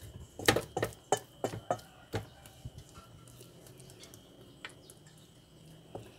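Wooden spatula knocking and scraping against a stainless steel bowl while folding sticky rice in coconut milk. A quick string of sharp taps comes in the first couple of seconds, then the stirring goes quieter.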